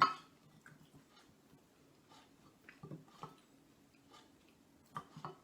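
Quiet eating noises: one sharp click at the start, then scattered soft clicks and small mouth sounds from someone eating a bowl of soup.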